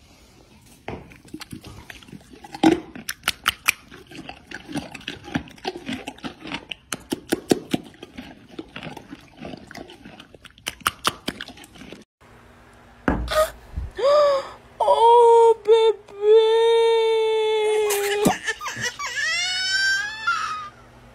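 A horse's lips smacking and flapping at a carrot, a fast irregular run of wet clicks. About 12 s in it gives way to a dog's long howl, held on one pitch for a few seconds and then wavering up and down.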